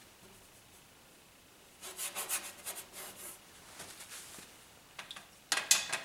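Stiff bristle brush scrubbing oil paint in short strokes: a scratchy rubbing run about two seconds in, and a sharper, louder flurry near the end.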